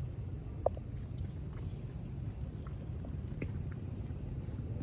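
Steady low outdoor rumble of background noise, with one short high squeak about half a second in and a few faint ticks.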